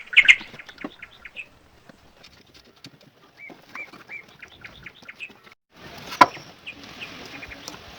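Small birds chirping now and then. A little before six seconds in, the sound cuts to a steady hiss with one sharp click.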